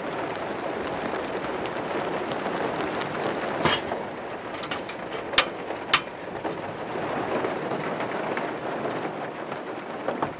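Heavy rain falling steadily. Over it come a few sharp clicks, the loudest two half a second apart a little past the middle, as the igniter knob of a portable gas stove is turned.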